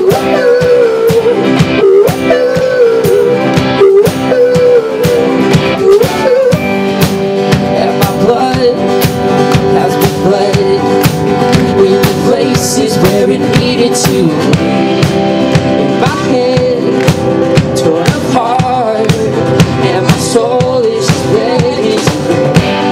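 Live rock band playing a song: guitars over a steady beat, with a wavering melody line on top.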